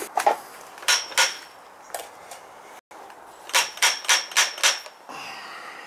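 Sharp metal clicks and taps with a short ring: threaded pipe fittings and tools being handled. Two come about a second in, then a quick run of about five near the end.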